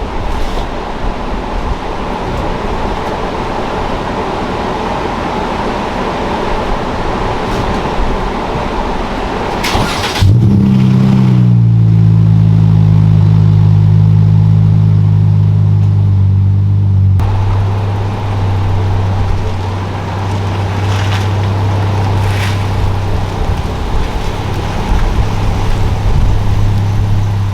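Car engine running, likely the Dodge Challenger's. About ten seconds in, a louder, steady low hum sets in, dipping slightly in pitch as it settles, and it carries on to the end under a rougher noise that returns near the middle.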